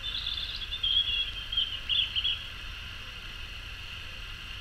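A bird calls in a quick run of high chirping notes that stops about two and a half seconds in, over a steady faint hiss.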